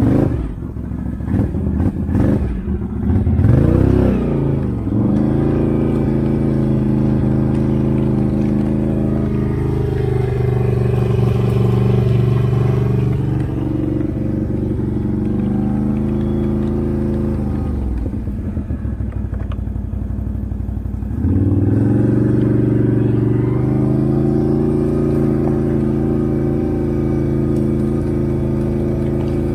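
Can-Am Outlander 650 ATV's V-twin engine running through a loud aftermarket Straightline Performance exhaust while riding. It revs up a few seconds in and holds a steady pitch, drops to a low idle a little past halfway, then revs up again and holds.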